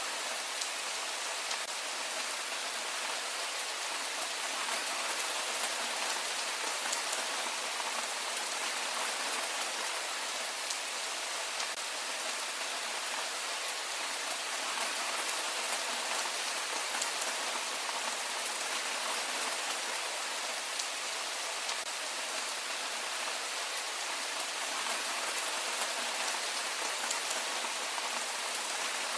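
Heavy rain falling steadily: an even hiss with a fine patter of individual drops.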